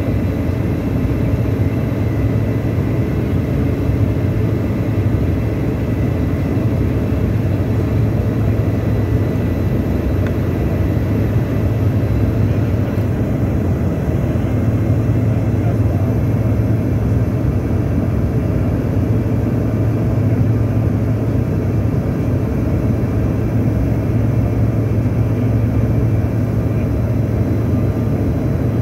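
Steady cabin noise of a Bombardier CRJ-900 regional jet climbing out after takeoff, from its two rear-mounted GE CF34 turbofans, heard inside the cabin, with a steady low hum underneath.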